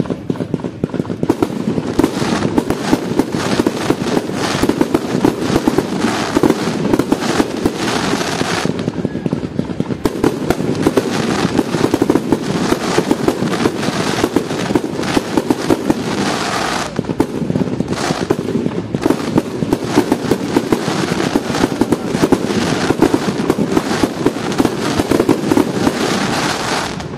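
Fireworks going off in a dense, rapid barrage of bangs and crackling. It starts abruptly and keeps up until just before the end.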